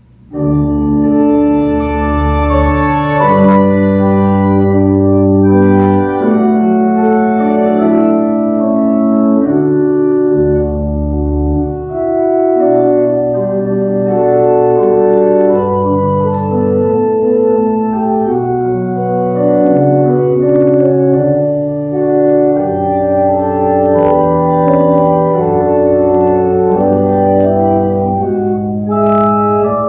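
Organ playing slow, sustained chords over a moving bass line, starting suddenly.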